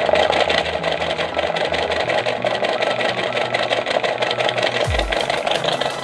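The small electric motor of a homemade cardboard washing-machine model running, a steady whirring with a fine rapid rattle as it spins the drum.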